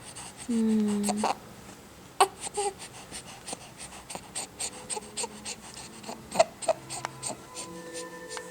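Baby sucking and smacking on his hand: a string of irregular wet mouth clicks, after a brief falling vocal sound about a second in.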